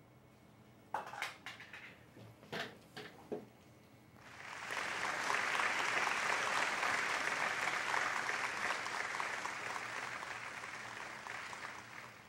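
Applause: a few short sharp sounds about a second in, then a burst of clapping that starts about four seconds in, holds for several seconds and tails off near the end.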